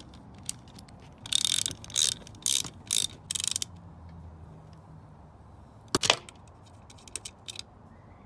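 A ratchet wrench clicking in about five short runs on a brake-arm pivot bolt of a bicycle fork. A single sharp metallic clink comes about six seconds in.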